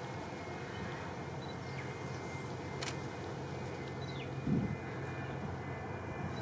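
Outdoor ambience: a steady low rumble with a few short, falling bird chirps. There is a sharp click about three seconds in and a low thump about four and a half seconds in.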